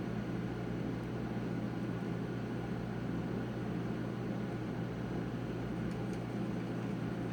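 Steady low hum and hiss of background noise, with a couple of faint small ticks about six seconds in.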